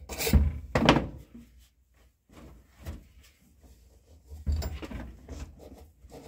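Handling knocks and rubbing at a Volkswagen Kombi's metal floor pedal as the old rubber pad comes off and a cloth wipes the bare pedal. There are dull thuds about half a second and a second in, quieter rubbing, then another cluster of knocks about four and a half seconds in.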